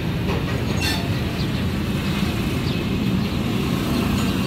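Brake lathe running with a vented brake disc mounted for resurfacing, a steady low mechanical rumble.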